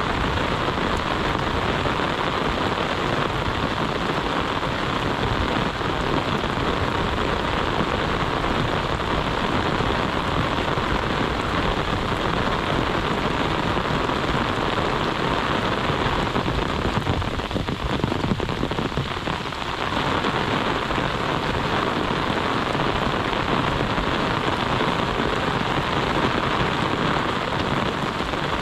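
Heavy monsoon rain falling steadily, a dense even hiss of drops on surfaces, with a short uneven patch about two-thirds of the way through.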